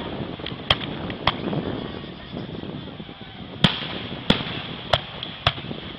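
Aerial fireworks shells bursting in six sharp bangs over a steady background noise. Two come about a second in, and four more follow in the second half, roughly every two-thirds of a second; the first of those is the loudest.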